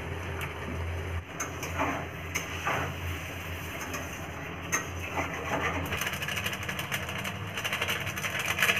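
Kitchen cooking noises: light clicks and scrapes of a spoon against metal pots over a steady low hum, getting busier near the end.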